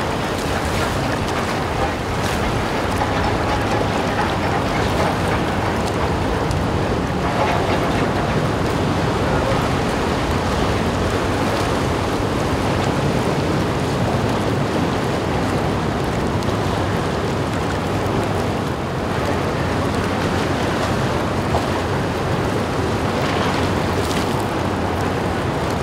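Propeller wash from a ferry's stern churning and splashing steadily against a concrete quay wall while the ship manoeuvres at its berth, over a low steady rumble from the ship.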